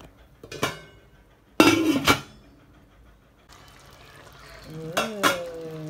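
Aluminium cooking pot and its metal lid clattering: a short click, then a loud metallic rattle about two seconds in. After that comes a steady low hiss of the adobo sauce simmering in the pot, with two sharp metal clinks near the end.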